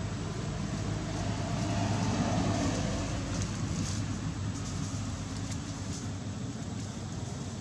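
Low, steady hum of a distant motor vehicle engine, swelling briefly in loudness about two seconds in and then settling.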